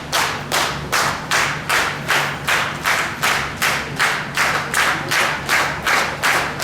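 Wrestling crowd clapping in unison: a steady, even beat of about two and a half claps a second.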